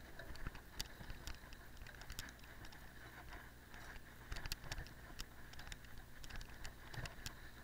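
Cyclocross bike riding over bumpy grass and leaves: irregular clicks and rattles from the bike over a low, steady rumble of the tyres on the ground.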